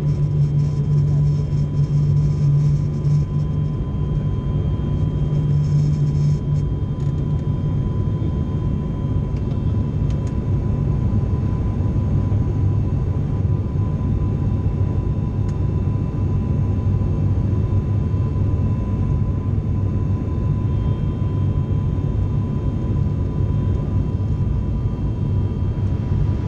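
Cabin noise of a turboprop airliner heard beside the propeller: a loud, steady engine and propeller drone with a thin whine over it. About six seconds in, the deep drone shifts lower as power changes on the descent.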